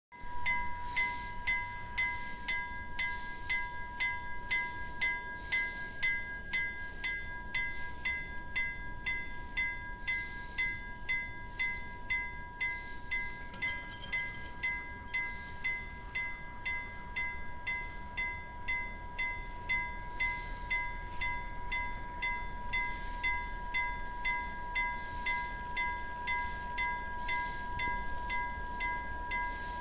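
Level-crossing warning bell ringing with evenly repeated strikes, warning of an approaching train while the crossing lights flash and the barriers come down.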